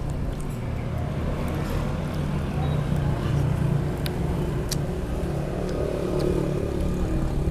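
A motor vehicle's engine running on the road close by, a steady low hum that swells around the middle, with a couple of light clicks about four seconds in.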